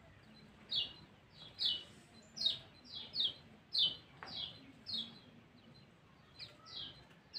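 Kecial kuning, a Lombok white-eye, calling: a steady series of short, high chirps that slide downward, a little more than one a second.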